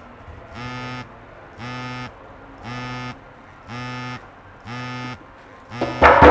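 A buzzer sounding in short buzzes of about half a second, repeating about once a second. A sudden loud noise cuts in near the end.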